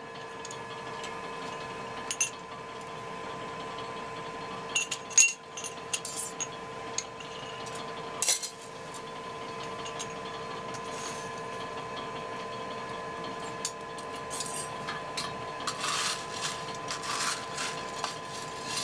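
Scattered metallic clinks of forge tongs and steel against the anvil over a steady hum, with a gritty scraping of forge coal being raked near the end.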